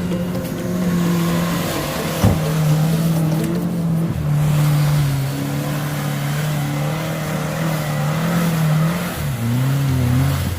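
Small off-road 4x4's engine running hard under load, its pitch wavering up and down with the throttle, with a single sharp knock about two seconds in.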